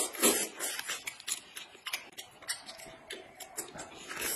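Noodles slurped and chewed close to the microphone: a run of irregular wet clicks and smacks.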